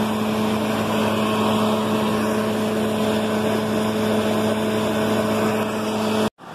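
Arch moulder running loud and steady, a strong even hum under a broad cutting noise as a curved trim piece feeds through on its template. The sound cuts off suddenly about six seconds in.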